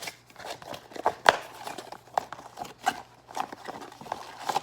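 Small plastic mini figures and their packaging being handled: a series of light plastic clicks and taps, the sharpest a little over a second in.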